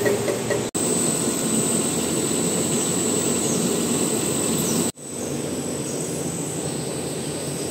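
Steady running noise of food-processing plant machinery, broken by two sudden cuts, about a second in and about five seconds in, after which a slightly different machine sound carries on.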